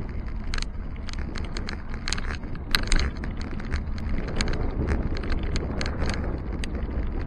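Wind rumbling on the microphone of a bicycle-mounted camera while riding, with irregular sharp clicks and rattles from the bike and mount over the road surface, loudest about three seconds in.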